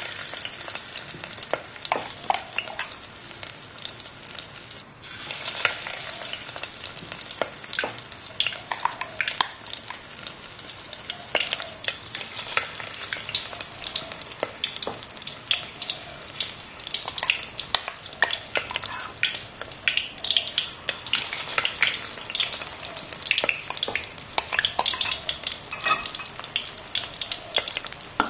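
Mung-bean and grated-carrot batter fritters deep-frying in hot oil in a steel wok: a steady sizzle full of sharp crackling pops, with a metal spoon moving in the oil among them.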